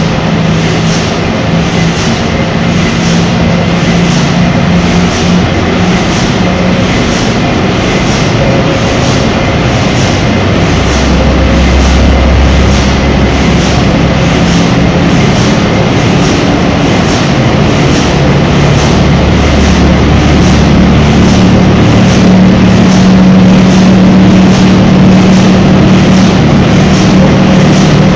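The H.C. Ørsted engine, a huge Burmeister & Wain two-stroke power-station diesel, running loud and steady with a constant mechanical clatter and a regular beat about once a second. A deeper low hum comes in about eleven seconds in and grows a little louder later on.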